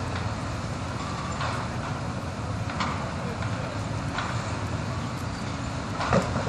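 Steady low rumble of the crawler crane's diesel engine, with a few short knocks as the wrecking ball strikes the brick wall, the loudest about six seconds in.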